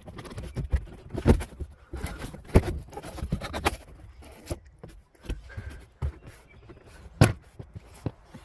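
Minivan interior trim panel being pulled loose by hand: a run of sharp clicks and knocks as its retaining clips are worked free. The loudest knocks come about a second in, about two and a half seconds in, and about seven seconds in.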